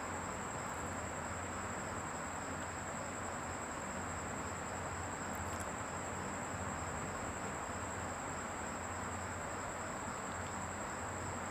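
Steady background hiss with a continuous high-pitched, insect-like trill. No distinct rattles or knocks from the shaken box stand out.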